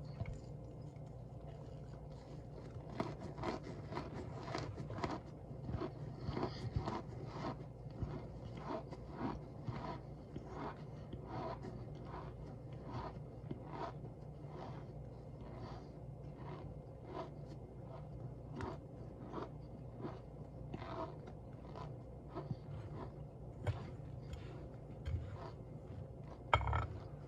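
Cornstarch being crunched and squeaked, a run of short, irregular crunches about one or two a second.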